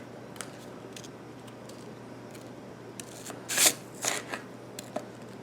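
Dry granola being scooped and poured into a bowl: a few light clicks, then two brief crisp rattling bursts a little past halfway, over a faint steady hiss.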